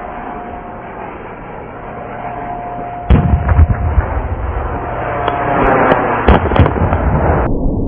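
Remote-control Mirage 2000 model jet flying with a steady whine, then about three seconds in a sudden loud missile-launch sound effect: a deep rumble with several sharp cracking bangs.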